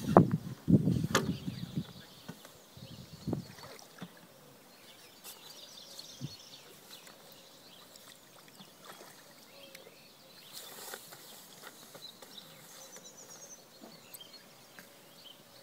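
Quiet outdoor ambience by a lake with faint bird chirps. In the first two seconds there is a cluster of dull knocks and rustles with one sharp click, and one more knock comes about three seconds in.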